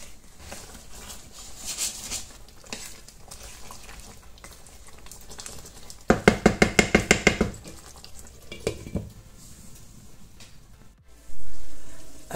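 Wooden spatula stirring a simmering pork stew in a nonstick pan, scraping through the sauce. About six seconds in comes a quick run of about a dozen sharp knocks of the spatula against the pan for about a second and a half, and near the end a brief loud rush of noise.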